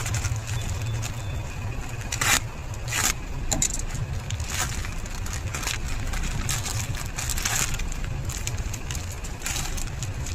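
Packaging crinkling and crackling as it is handled, with irregular sharp crackles over a steady low rumble.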